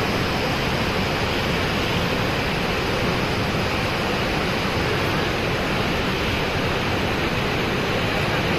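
Steady rush of heavy floodwater pouring through open dam gates, an even noise that does not change.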